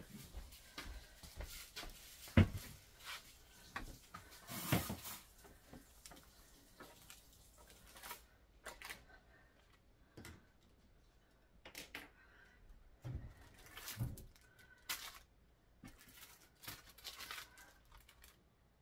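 Hands clearing and cleaning a cluttered wooden coffee table: scattered faint knocks, clicks and rustles as things are moved and debris is cleared, with one sharp knock about two and a half seconds in.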